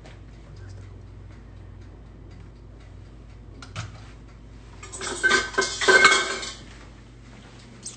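Metal kitchenware clattering for about a second and a half, about five seconds in, with short bright ringing among the knocks, over a faint steady hum.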